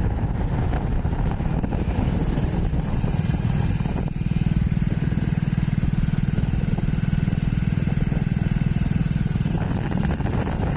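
Motorcycle engine running while riding along a road, with road and wind noise. The engine note grows louder and more even about four seconds in and eases off near the end.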